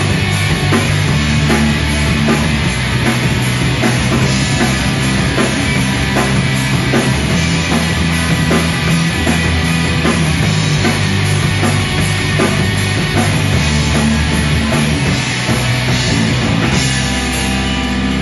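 A rock band playing live: electric guitars over a full drum kit, with no singing.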